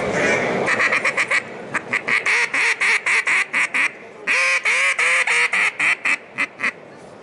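Mankoff Pioneer-series two-reed plastic duck call blown as duck quacks. A quick run of short quacks comes first, then a longer note a little past four seconds in, then more short quacks spacing out and stopping about a second before the end.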